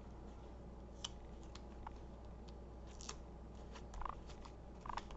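A few faint, scattered clicks and taps of paper craft materials being handled on a work surface.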